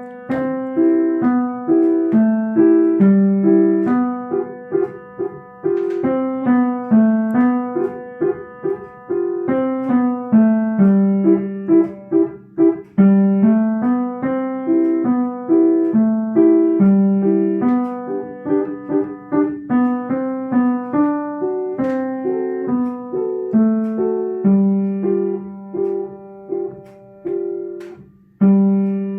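Solo piano playing a gentle melody, one note at a time over a simple accompaniment, each note fading after it is struck.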